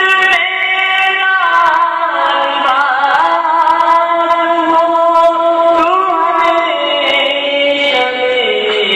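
A single voice chanting a devotional supplication (dua/munajat) in long held notes that slide from one pitch to the next.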